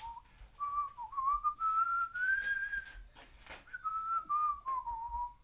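A person whistling a slow, wandering tune. Single notes slide up to a long held high note and drift back down near the end. A couple of faint clicks come a little after three seconds in.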